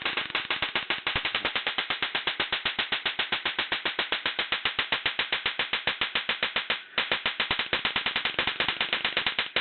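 High-voltage sparks snapping across a spark plug gap, driven by a capacitor pulse circuit through a homemade toroid isolation coil: a fast, even train of sharp cracks, about ten a second. The snapping stops briefly about seven seconds in, then starts again.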